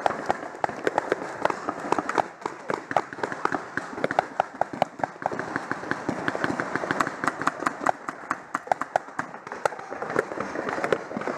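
Paintball markers firing across the field: rapid, irregular sharp pops, several a second, some close and some distant.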